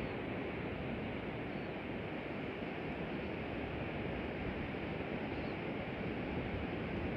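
Steady wash of ocean surf breaking on the beach below, with wind rumbling on the microphone.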